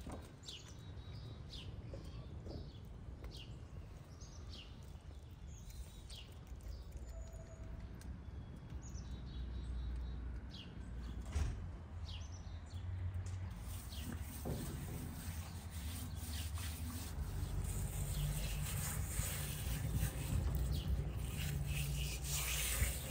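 Small birds chirping outdoors, short falling calls about once a second, over a low rumble of wind. About halfway through, a steady rustling hiss joins them.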